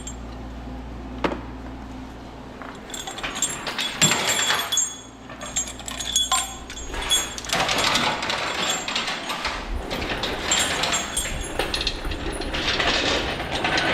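Metal hand tools clinking and rattling, with a sharp click about a second in, a knock a few seconds later, and then a busier stretch of clatter.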